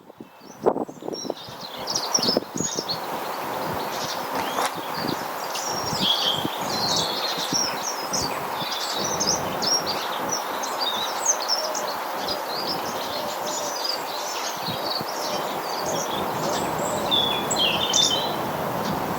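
Small garden birds chirping and twittering in quick, overlapping short calls, over a steady background hiss. A few sharp knocks come in the first couple of seconds.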